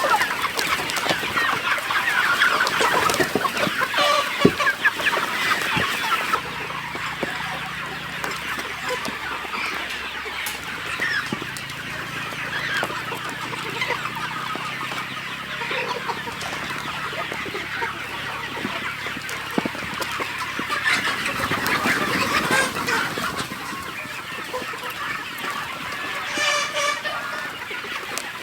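A flock of chickens clucking and calling over one another, with one louder, drawn-out call near the end.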